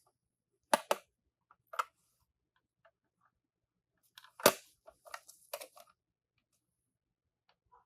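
Toy minicars being handled: a few sharp clicks and clacks, the loudest about four and a half seconds in, followed by a short cluster of clatter.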